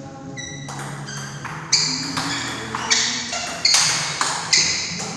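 Table tennis rally: the celluloid ball clicking sharply off the rubber paddles and the table top, about five loud hits under a second apart from near two seconds in, each with a short ring in the hall, after a few fainter taps.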